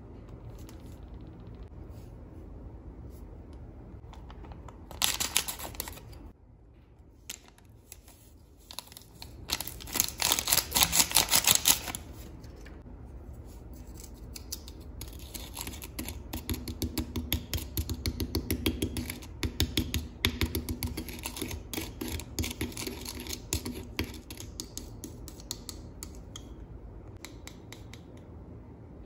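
Close-up handling sounds of a DIY candy kit: a clear plastic spoon stirring and scraping a powder-and-water mix in a ceramic dish, a rapid rhythmic scraping that runs for about ten seconds in the second half. Earlier come two loud short bursts of rustling and clicking, about five and ten seconds in.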